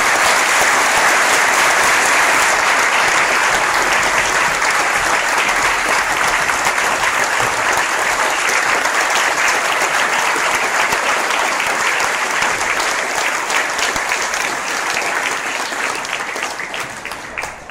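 Theatre audience and cast applauding together: loud, steady clapping that dies down near the end.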